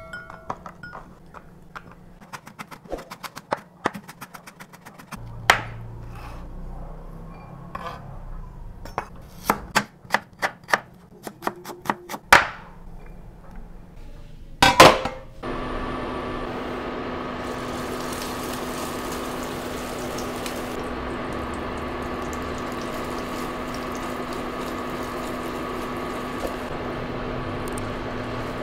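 Scattered light clicks and knocks of kitchen handling, then a loud knock as a pan is set on an induction cooker's glass top about halfway through. Right after, the Imarflex induction cooker starts and runs with a steady hum of its cooling fan, with a few steady tones over it.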